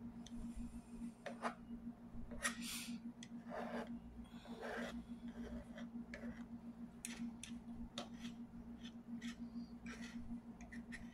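Fork clicking and scraping against a plate in short, irregular strokes while eating, over a steady low hum.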